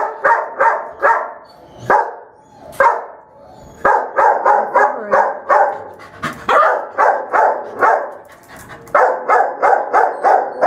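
Shelter dog barking in quick runs of four to six barks, with single barks and short pauses between the runs.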